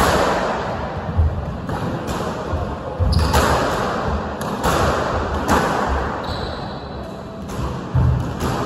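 Squash rally: the ball struck by rackets and smacking off the court walls in a series of sharp, echoing cracks, roughly one every second, with a short high squeak about six seconds in.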